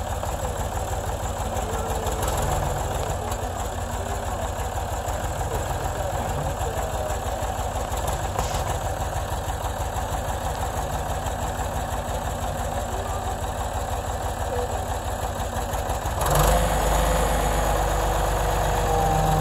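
Ford backhoe loader's engine idling steadily with an even low pulse. About sixteen seconds in, it gets louder and heavier and stays that way.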